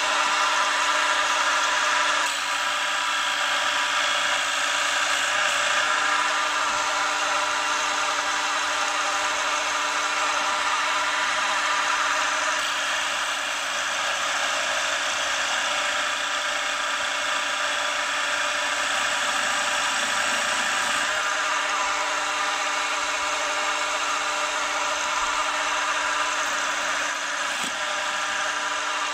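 Small benchtop mill-drill running steadily, its motor giving a constant hum with a few steady tones, while the cutter in its chuck bores into a wooden blank to cut round beads.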